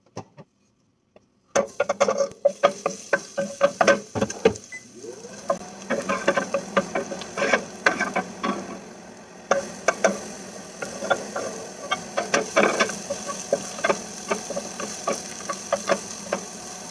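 Garlic and chopped red onion sizzling in hot oil in a stainless-steel skillet, with a wooden spatula scraping and knocking against the pan in frequent clicks. It starts suddenly about a second and a half in, after near silence.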